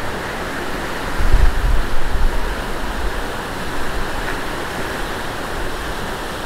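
Water rushing over a weir, a steady loud rush, with a stronger low rumble for a moment about a second in.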